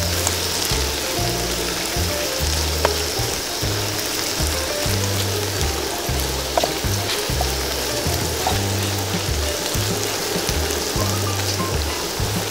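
Whole quails deep-frying in hot oil in a wok, a steady sizzle, under background music with a bass line that changes note about every second.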